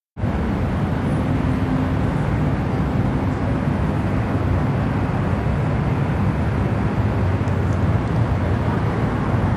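Steady low rumble of outdoor city street noise, mostly traffic, starting abruptly a moment in.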